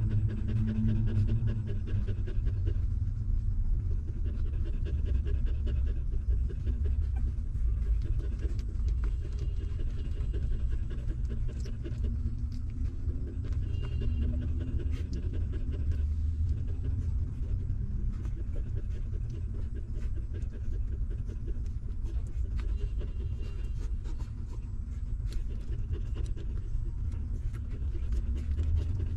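Mother dog panting steadily and rapidly while her newborn puppies suckle at her teats.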